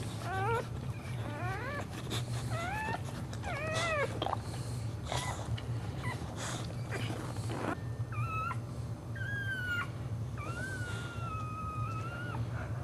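Boxer bitch whining in labour as she delivers a puppy: a run of short rising whimpers, then several longer drawn-out high whines in the second half, over a steady low hum.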